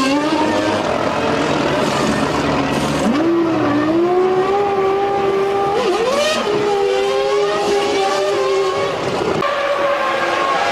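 Formula One car V10 engines running in the pit lane, their pitch steady, stepping up about three seconds in and changing again near the end, with brief hisses around three and six seconds.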